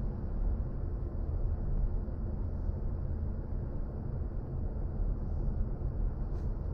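Steady low road and tyre rumble heard from inside the cabin of a BMW i4 M50 electric car on the move, with no engine note. A faint click comes near the end.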